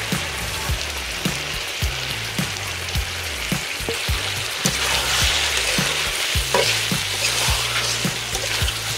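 Food sizzling and frying in hot oil in an iron karahi as it is stirred with a metal spatula; the sizzle swells about halfway through as a burst of steam rises from the pan.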